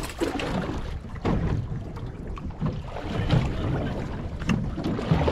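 Wind buffeting the microphone over water lapping against a small fishing boat, with a couple of short knocks or splashes near the end.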